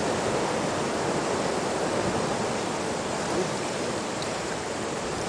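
A steady rushing noise with no distinct events, fading slightly toward the end.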